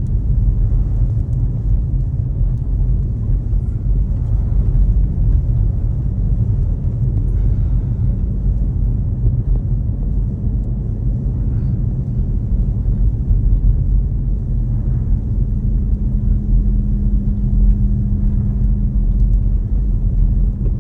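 Jeep Grand Cherokee with a Hemi V8 cruising on snow-covered roads, heard from inside the cabin as a steady low rumble of engine and road noise at light throttle. A steady engine hum comes through more plainly about three quarters of the way in.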